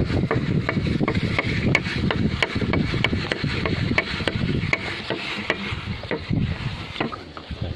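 Plastic mulch film rustling and crackling as it is unrolled by hand off a metal pipe over a raised bed: a rough rubbing noise full of irregular sharp crackles over a low rumble.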